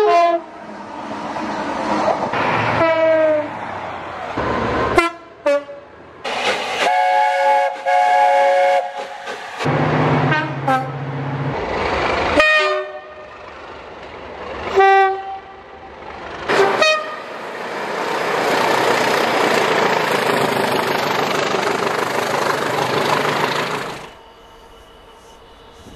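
A quick-cut run of train sounds: repeated two-tone horn blasts from diesel locomotives and units, some falling in pitch as the train passes, between bursts of engine and rail noise. Near the end, several seconds of a train running past with steady wheel-on-rail rushing, cut off abruptly.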